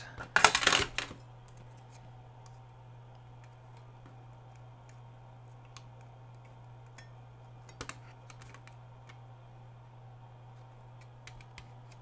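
Hard plastic clicks and clatter of a Dish Network (EchoStar 21.0 IR/UHF PRO) remote's case being handled and fitted back together: a loud cluster of clicks within the first second, then a couple of faint clicks later, over a steady low hum.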